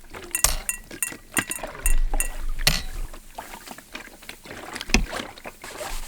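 Hand-made foley effects: water sloshing and splashing, like a boat or paddle on water, with a quick run of sharp knocks and clicks in the first few seconds and scattered ones after.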